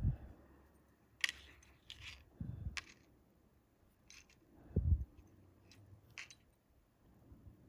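Handling noise from tying a fishing knot: a handful of small sharp clicks and three soft low thumps as fingers work the line and a coiled wire spring feeder with its bead and swivel.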